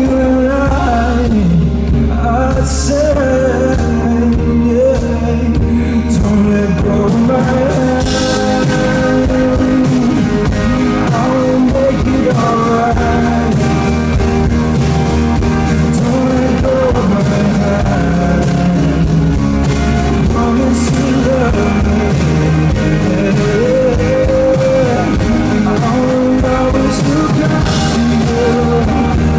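Live band music with a man singing, recorded in the venue during a soundcheck. The arrangement gets fuller and brighter about eight seconds in.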